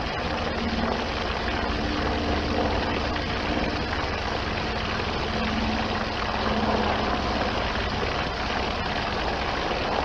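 Steady rushing of water pouring from a garden hose, with a constant low rumble under it.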